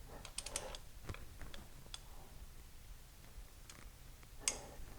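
Torque wrench ratcheting on the intake manifold bolts of an Oldsmobile 455 V8: faint light clicks, a quick cluster about half a second in, then single clicks spaced out and a sharper one near the end. This is the first torque pass at 15, in the outside-in sequence for the intake.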